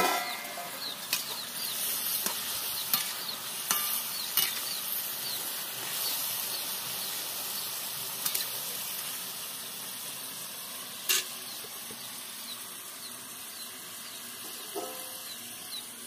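Chopped bottle gourd sizzling in a steel wok while a metal spatula stirs it, scraping and knocking against the pan several times; a loud metal clank comes right at the start.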